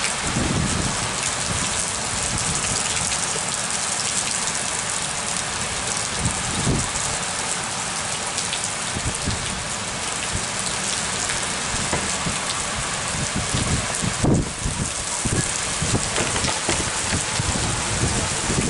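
Heavy rain pouring steadily in a spring thunderstorm, a dense even hiss of drops on ground and foliage, with a few short low thumps.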